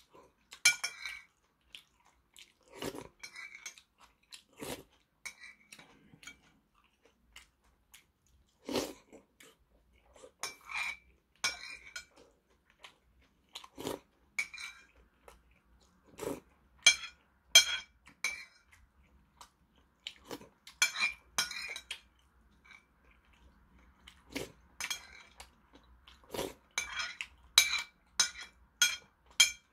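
Metal spoon repeatedly clinking and scraping against a porcelain soup bowl in sharp, ringing taps at an irregular pace, with chewing between spoonfuls of rice-cake and dumpling soup.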